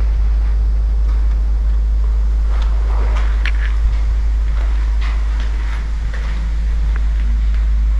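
Wind buffeting the camera microphone with a steady low rumble, and scattered crunches of footsteps on rubble and broken glass, mostly in the middle.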